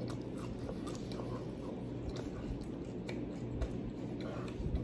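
A person chewing a mouthful of tuna sub on soft French bread: faint, irregular wet mouth clicks over a low, steady hum.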